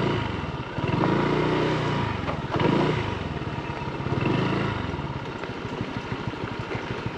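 Honda Click 160 scooter's single-cylinder engine riding slowly, its note rising and falling several times with the throttle, then settling to a lower, steadier putter near the end.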